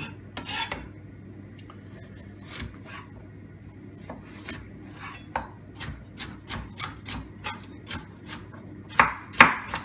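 Chef's knife chopping carrot on a wooden bamboo cutting board: a few scattered knife strikes on the board at first, then a steady run of about three a second, the two loudest near the end.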